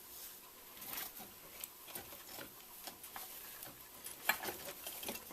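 Scattered light clicks and taps of metal parts being handled and fitted on a shock strut assembly, with a few louder knocks near the end.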